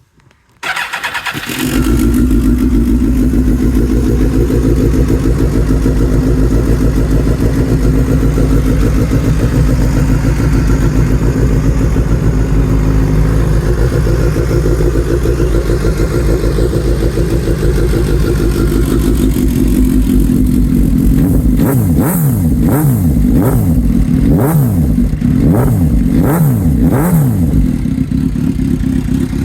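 2006 Suzuki GSX-R1000 K6's inline-four engine, breathing through a de-catted straight-through exhaust with a carbon can. It is started with a brief crank, catches about a second and a half in, and settles to a steady idle. Later it is revved in a run of quick throttle blips, each rising and falling, then drops back to idle.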